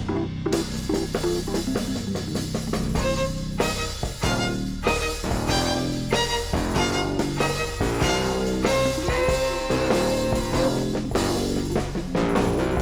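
Rock music with a drum kit and guitar, a steady beat throughout.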